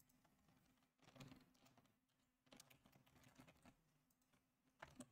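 Near silence with a few faint computer keyboard keystrokes, scattered and irregular.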